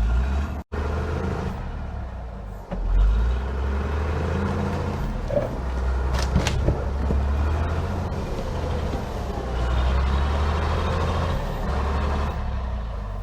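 Volvo TL22 army truck's diesel engine running with a heavy low rumble, its note rising and falling with load. There is a momentary break in the sound under a second in.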